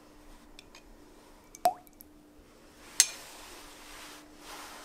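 A spoonful of cooking oil drops into water in a glass bowl with a single small plop, and about three seconds in a metal spoon clinks sharply once against glass.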